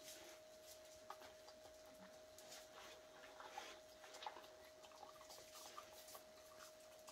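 Dogs and a cat eating dry kibble: faint, irregular crunching and clicking of the pellets, over a faint steady tone.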